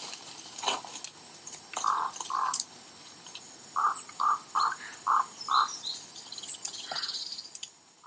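A crow-family bird calling off-screen: two harsh calls about two seconds in, then a run of five evenly spaced calls, about two a second, from about four seconds in.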